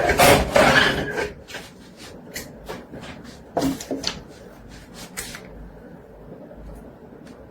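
Handling of a power bank: a rustling noise, then a quick run of about a dozen small clicks and taps over about four seconds, stopping a little past the middle.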